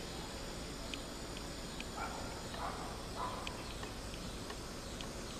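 Faint outdoor ambience: scattered short, high chirps, and three soft animal calls a little over half a second apart, about two to three seconds in.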